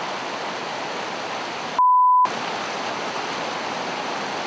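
Steady rush of a fast, white-water river. About two seconds in, it is cut by a loud, single-pitched censor bleep about half a second long, with the river sound dropped out beneath it.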